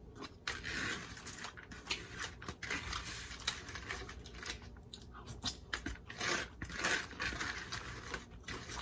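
Close-miked chewing and biting of fried red snapper: irregular wet, crunchy mouth sounds with many small clicks.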